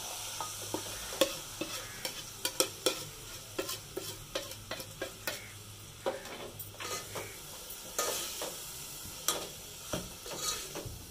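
Steel ladle stirring and scraping in a steel cooking pot with irregular clicks, while tomatoes, green chillies and spice masala sizzle as they fry with browned onion.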